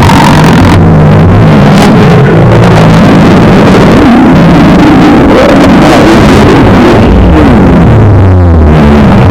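Very loud stomach growling from an empty, hungry stomach: long, low rumbling gurgles that waver up and down in pitch without a break.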